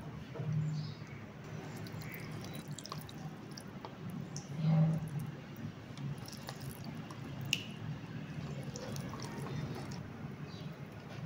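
Soft wet squishing and dripping of thick cream, soaked sago pearls and mango purée being spooned and spread in a glass bowl with a silicone spatula, with scattered small clicks of the spatula against the glass.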